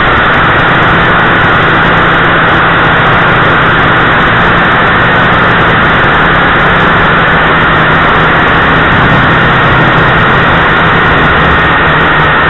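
JRC H8C quadcopter's motors and propellers buzzing steadily in flight, loud and harsh as picked up by its own onboard camera, with a steady low hum under a high whine.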